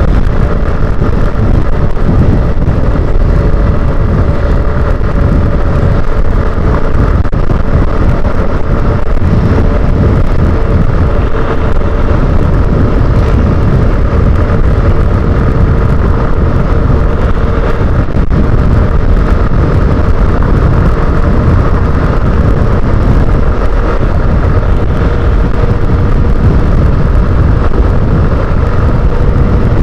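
Honda motorcycle cruising at a steady highway speed of about 75 km/h: a constant engine drone under heavy wind rush on the microphone, with no changes in speed or revs.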